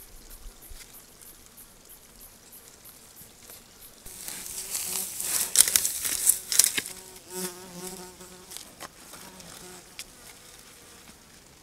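A fly buzzing close to the trail camera's microphone: a wavering hum that comes and goes in the second half. Just before it, a few seconds of loud, close crackling and rustling.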